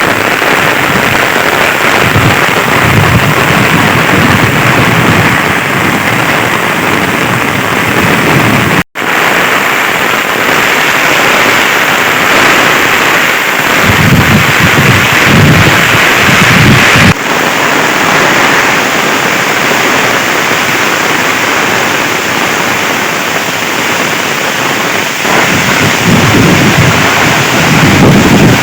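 Heavy rain pouring down in a storm, a steady dense hiss, with strong wind gusting on the microphone as low rumbles that swell and fade. The sound cuts out abruptly for a moment about nine seconds in.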